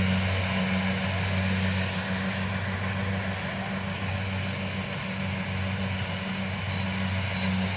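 Kubota DC-70 combine harvester's diesel engine running steadily, a constant low drone over a noisy mechanical whir.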